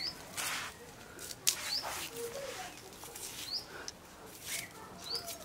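A bird repeating a short rising chirp about every second and a half, over the crackle and rustle of dry onion skins and stems being peeled and trimmed by hand with a curved blade, with a sharp click about one and a half seconds in.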